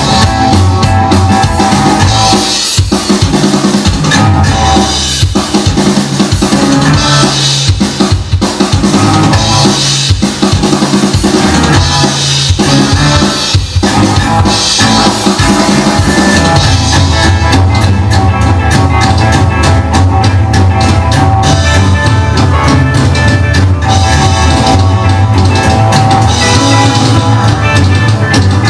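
Recorded rock'n'roll song with a prominent drum kit, loud; the bass becomes heavier and steadier about halfway through.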